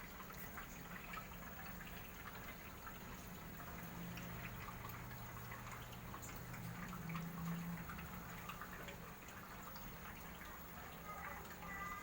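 Water trickling and splashing down an aquarium aquascape's small waterfalls, with scattered drips, over a steady low hum from the single pump that drives them.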